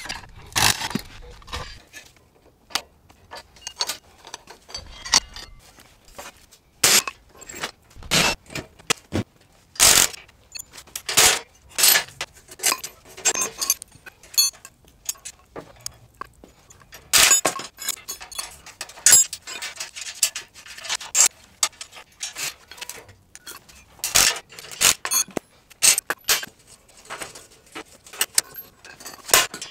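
Hand tools and rusty steel go-kart parts clinking, clanking and scraping against each other and a concrete floor as the kart is taken apart. The sound comes as many scattered sharp knocks and rattles with short quiet gaps.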